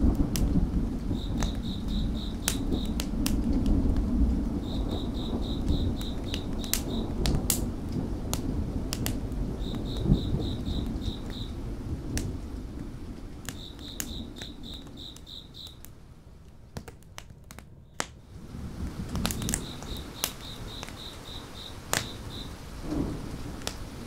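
Layered ambience of rolling thunder, rain hiss, crickets and a crackling wood fire. The low thunder rumble is strongest at the start and dies away about halfway through. The crickets chirp in five short trills a few seconds apart, and sharp crackles and pops from the burning wood come throughout.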